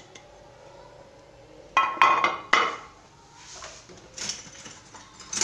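Kitchen utensils knocking and clinking against dishes: a quick cluster of sharp clinks about two seconds in, fainter knocks after, and a short scraping rustle near the end.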